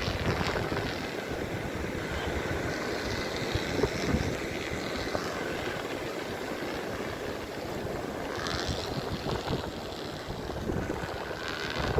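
Wind buffeting the microphone in a steady low rumble, with sea surf washing behind it.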